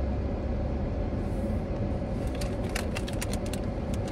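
Steady low rumble of a car's engine and road noise heard inside the cabin while driving. From about halfway through there is a run of small, irregular clicks.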